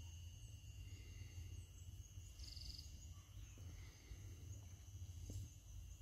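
Faint outdoor ambience: a low wind rumble under a steady thin high-pitched hum, with a short trill about two and a half seconds in.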